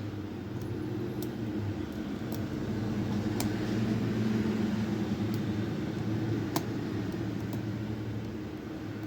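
Faint, irregular metallic clicks of a lock pick and tension wrench working the pins inside a challenge lock, over a steady low hum.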